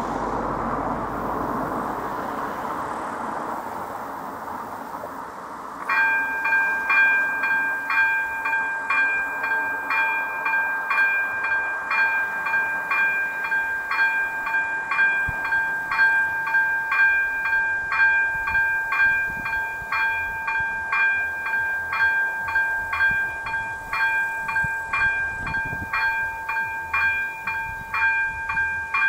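Level-crossing warning bell of an AŽD 97 signal (second-generation electronic bell) starts ringing about six seconds in, then goes on as a steady run of metallic strikes at about one and a half a second. It is the warning that the crossing is closing for an approaching train. Before it starts there is a rushing noise that fades away.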